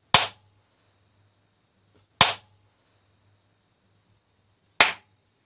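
Three sharp hand claps about two and a half seconds apart, each one triggering a clap switch to toggle a light bulb on or off.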